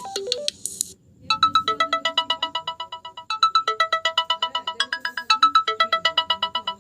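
Smartphone ringtones previewed through the phone's speaker. A short stepping melody ends about a second in, then a fast electronic ringtone of rapidly repeated beeps, about eight a second, plays in repeating phrases and stops near the end.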